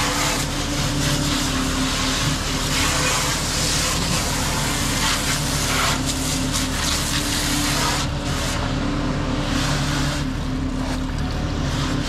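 Water hose spraying onto the steel discharge chute of a concrete mixer truck, washing it out, with a steady hiss that breaks off for moments in the last third. Under it the truck's diesel engine runs steadily.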